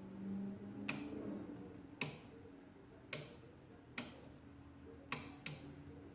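Six short pops from the speaker of a 1938 General Electric tube radio as a front-panel control is turned, about a second apart with the last two close together. A faint steady hum runs underneath.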